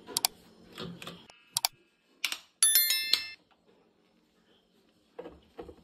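A few light clicks and knocks of kitchen things being handled, then a brief electronic chime of several quick high notes about three seconds in.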